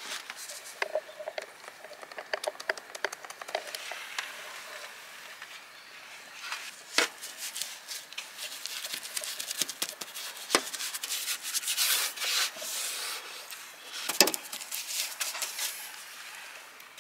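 Goat-hair paint brush scrubbing paint onto a galvalume steel roof panel: an irregular scratchy rubbing of bristles on metal, with small clicks and a few sharper taps.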